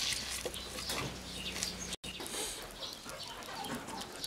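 Chickens clucking faintly, with scattered short bird calls over a low background hum.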